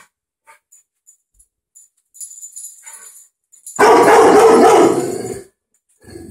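Rottweiler puppy giving one loud, drawn-out bark lasting over a second, about four seconds in, after a few seconds of only faint small sounds.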